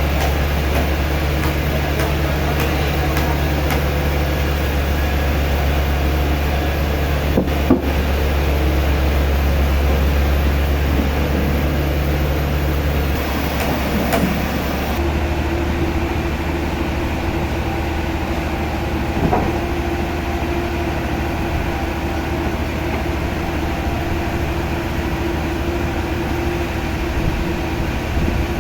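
Sawmill machinery running with a steady low hum. About halfway through it changes to a different, higher steady hum, and there is a short knock about a quarter of the way in.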